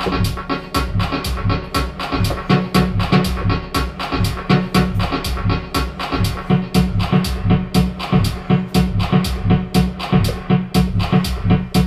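Electronic beat programmed and played on a Native Instruments Maschine Mikro MK2: steady rhythmic drum hits with a bass part, with tracks switched in and out by the mute button. The bass part gets much stronger about two and a half seconds in.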